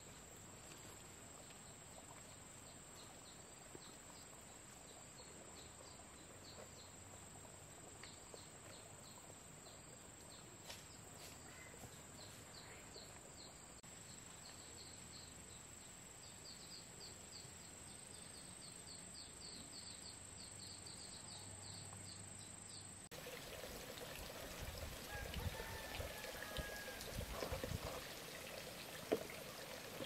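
Quiet outdoor rural ambience: insects keep up a steady high drone, and a run of short, quickly repeated chirps comes in partway through. About three quarters of the way through, the sound changes to louder water sounds and handling knocks.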